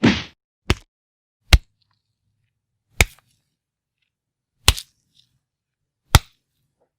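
Fight-punch sound effects: about six sharp, separate hits with silence between them, spaced unevenly, the first with a longer tail.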